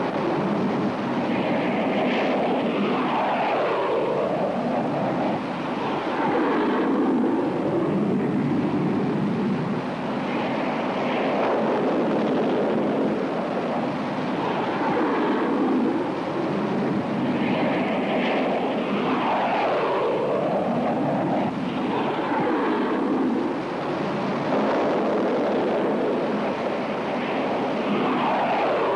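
Fiat G.91 jet fighter's engine noise, a steady loud rush that swoops down and back up in pitch several times as the aircraft passes.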